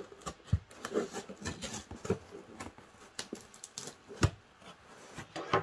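Hands working at the taped-shut flaps of a cardboard box: scratching, scraping and rustling of tape and cardboard with scattered taps, and a sharper knock about four seconds in.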